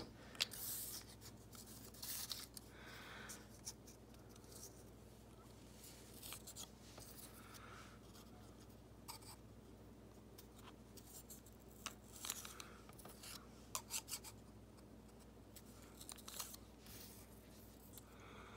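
Faint scattered rustles and small ticks of card-stock flower cutouts being handled and pushed onto the needle of a pointed hand tool.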